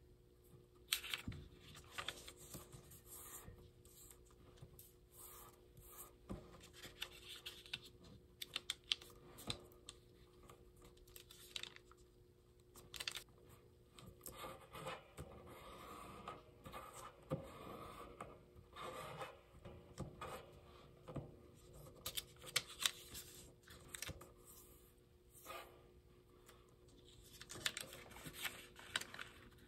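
Sheet of origami paper being folded by hand: the paper slides and rustles on the table, with short sharp crackles each time a crease is pressed and run down with the fingers.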